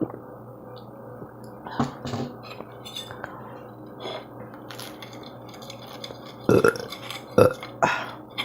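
A person eating close to the microphone, burping and chewing, with a few short loud mouth sounds, most of them near the end.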